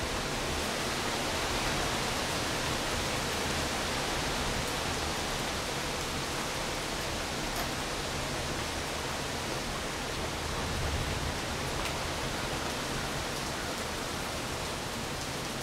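Steady rain falling, an even hiss with no thunder.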